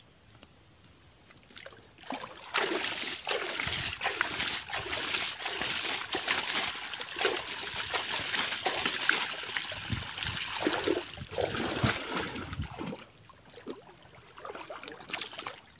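Water splashing and sloshing from hands working in shallow water. It starts about two seconds in, goes on busily for about ten seconds, then eases off.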